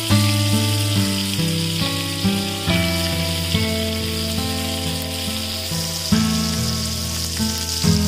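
Background music of held notes that change every second or so, over a steady sizzle of spice-coated boiled eggs frying in oil in a grill pan.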